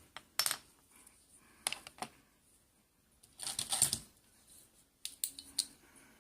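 Light clicks and taps of small metal lock pins and tools being handled on a work surface, with a short scraping rustle just past the middle and a quick cluster of clicks near the end.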